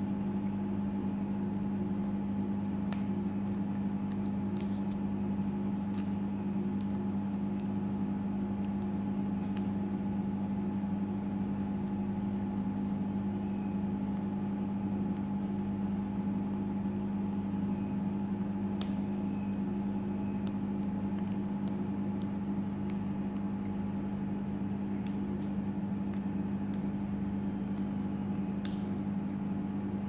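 A steady low electrical hum from a household appliance, with scattered faint sharp clicks of an African grey parrot's beak cracking and husking seeds.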